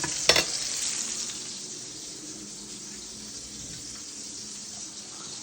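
Ribeye steaks sizzling in a frying pan, a steady hiss that eases a little over the first couple of seconds. A sharp knock sounds just after the start.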